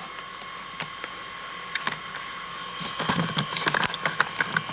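Close handling noise: a few scattered clicks, then a quick run of small clicks and rattles from about three seconds in, over a faint steady whine.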